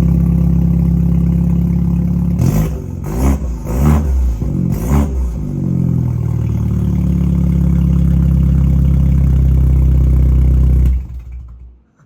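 A car engine idling, blipped sharply about four or five times a few seconds in, then settling back to a steady idle before it cuts off abruptly near the end.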